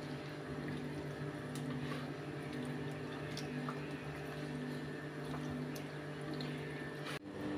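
Hands squishing and rubbing a wet spice marinade into raw chicken drumsticks in a ceramic dish, with small wet clicks over a steady low hum.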